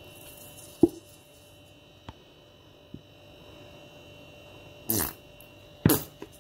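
Steady electrical hum, with a sharp click about a second in, two faint ticks, and two louder short noises near the end.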